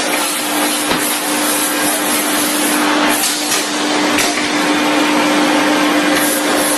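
Factory machinery running: a steady loud hiss with a constant hum, and a few brief hissing surges partway through.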